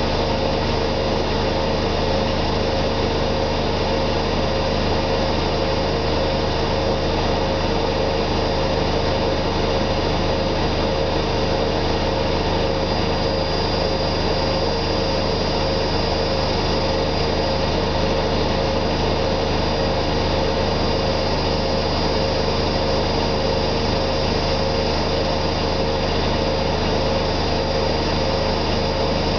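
Zanussi ZWF 1621 W front-loading washing machine at full 1600 rpm spin: a steady, loud motor-and-drum whine with a rushing hum. It holds speed without rising or falling.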